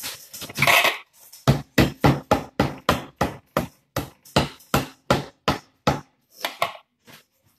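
Knife chopping on a board while lobster is prepared: a steady run of hard knocks, about three a second, stopping shortly before the end.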